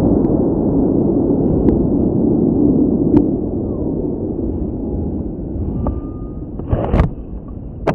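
Aerotech J435 White Lightning rocket motor burning: a loud, dense low rumble that slowly fades, with a couple of sharp clicks near the end.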